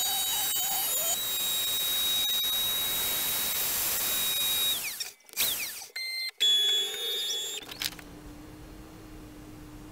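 CNC router spindle running at high speed with a steady high-pitched whine while milling MDF. About five seconds in, the whine falls away, followed by a few short, choppy loud sounds with abrupt dropouts between them, then a quieter low steady hum.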